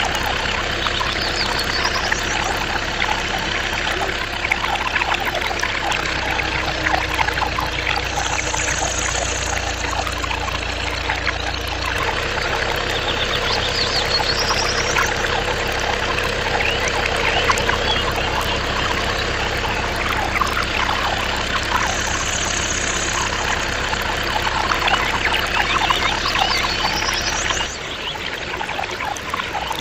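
A stream of water pouring from a pipe and splashing into a small pond, with the steady low hum of a small electric water pump running beneath it. The hum drops out near the end while the splashing goes on.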